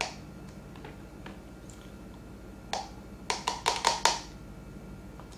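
Stainless steel ladle knocking against a plastic cup while spooning thick mung bean porridge into it: a knock at the start, another a little before the middle, then about six quick knocks with a faint metallic ring as the porridge is shaken off the ladle.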